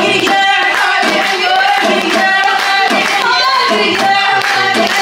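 Voices singing, with hands clapping along.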